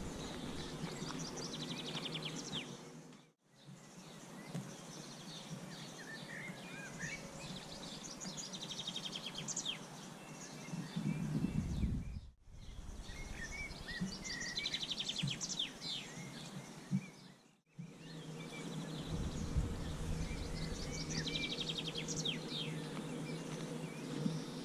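Birds chirping and trilling in the trees over a steady outdoor background. The sound drops out briefly three times at edit cuts, and a low rumble comes in twice, just before the middle and again about three-quarters through.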